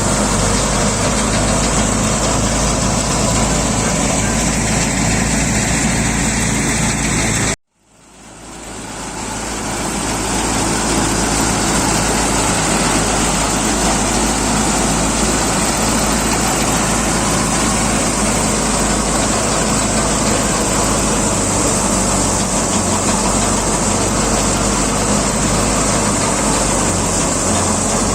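Tractor-driven wheat thresher running steadily: a loud mechanical din over the tractor engine's regular low beat. The sound cuts out abruptly about seven and a half seconds in and swells back over the next two seconds.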